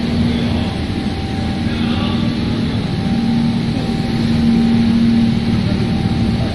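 Machinery running with a steady low hum over a constant rumble.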